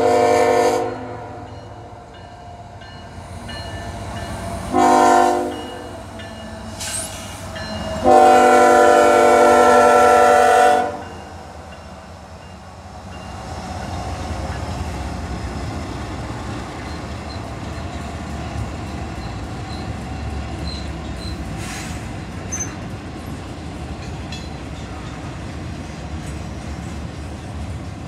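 CSX diesel locomotive's multi-tone air horn sounding for a grade crossing: a blast ending about a second in, a short one about five seconds in, and a long one of nearly three seconds about eight seconds in. From about thirteen seconds on, the locomotives and double-stack container cars roll past with a steady low rumble.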